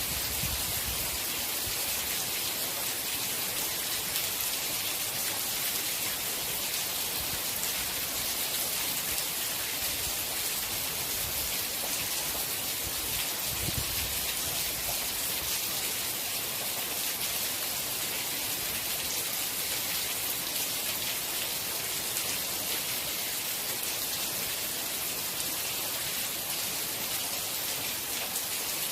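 Steady rain: an even hiss of falling drops with no pauses.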